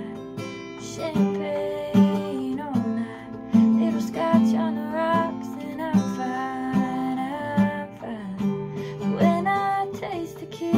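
An acoustic guitar strummed, with a woman singing along.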